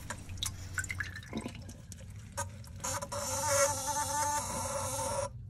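Small electric bilge pump motor buzzing for about three seconds, starting about two and a half seconds in and cutting off suddenly. It is a brief run set off by wetting the electronic water-sensing switch in the bilge.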